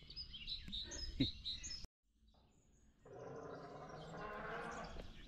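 Small birds chirping and calling in short high notes. About two seconds in, the sound cuts out abruptly, and after a second a steady rushing outdoor noise sets in with a few faint chirps over it.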